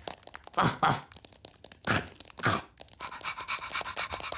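Cartoon sound effects for a ladybird pet: four short swooping noises in the first two and a half seconds, then from about three seconds in a quick, even pattering as it scuttles down the stairs with a shoe in its mouth.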